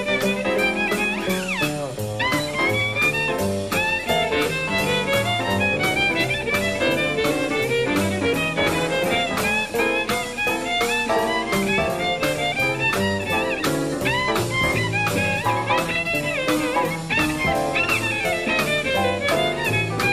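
Jazz violin solo with many sliding notes, over a swing rhythm section of piano, double bass and drums keeping time on the cymbals.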